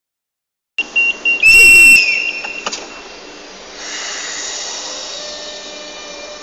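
Renfe Class 447 electric train departing: a high steady warning tone, a loud shrill whistle blast about a second and a half in, and a clunk. From about four seconds in comes the hum and slowly rising whine of its electric traction motors as it pulls away.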